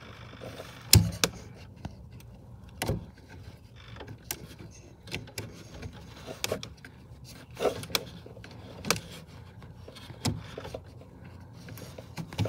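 Scattered plastic clicks and taps from fuses and relays being handled and pressed in a truck's fuse-and-relay panel, about a dozen short knocks, the loudest about a second in.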